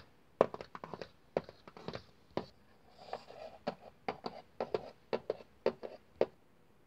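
Plastic toy horse figures tapped along a wooden floor as they are walked, a run of irregular light clicks that stops shortly before the end.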